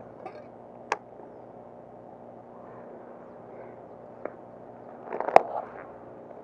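Hand-held unhooking of a snakehead: a few sharp clicks and knocks of a homemade hook remover and lure, single ones about a second in and past the four-second mark, then a louder cluster about five seconds in, over a low steady hum.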